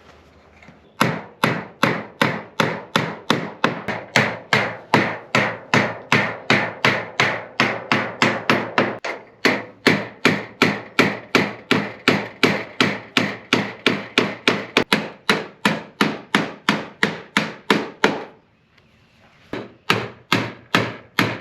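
Steady hammering on wood, sharp evenly spaced blows at about two to three a second, stopping briefly near the end and then starting again.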